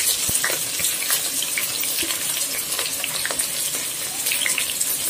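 Sliced onions sizzling and crackling as they go into hot oil in a pressure cooker, an even hiss full of small pops. A couple of light knocks from the spatula and plate against the pot, one just after the start and one about two seconds in.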